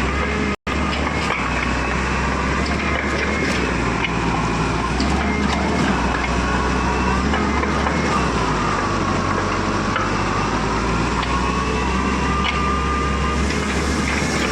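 Heavy diesel construction machinery running steadily, with a faint wavering high whine over a constant low engine note. The sound cuts out for an instant about half a second in.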